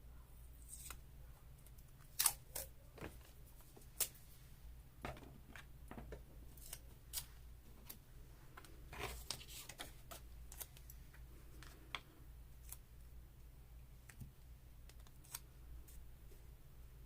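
Scissors snipping paper and paper being handled in irregular small clicks and rustles, the sharpest snips about two seconds in and at four seconds, over a steady low hum.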